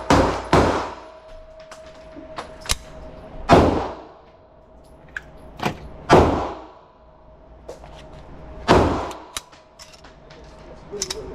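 Gunshots at an indoor shooting range: five loud reports, the first two close together and the rest a few seconds apart, each trailing off in a ringing echo, with fainter sharp clicks between them.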